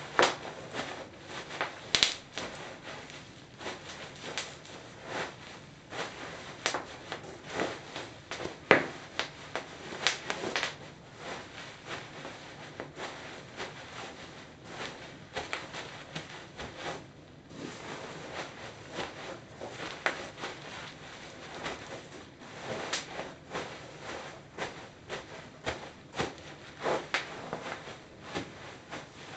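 Bubble wrap trampled under Birkenstock sandals: the plastic crinkles and crackles with each step, and a few bubbles burst in sharp, louder pops. It goes quieter for a moment about two-thirds of the way through.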